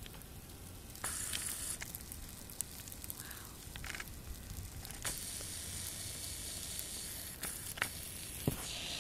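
Snow in a blizzard hissing and crackling, with scattered small clicks and ticks. The hiss swells about a second in and again from about halfway on.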